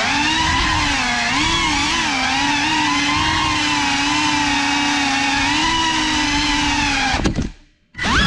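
Brushless motors and propellers of an FPV quadcopter whining, the pitch rising and falling with the throttle. Near the end the whine cuts out for about half a second, then comes back as a short burst rising in pitch.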